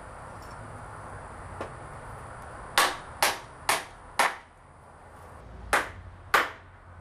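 Claw hammer driving a nail through a 2x4 framing board into a wooden spacer block. Four sharp strikes about half a second apart start near three seconds in, then after a short pause two more strikes follow.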